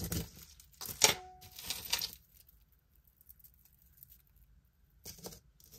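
Costume jewelry being handled: light clicks and rustles of beads and chain, with one short ringing clink about a second in, then a near-silent pause and a few more clicks near the end.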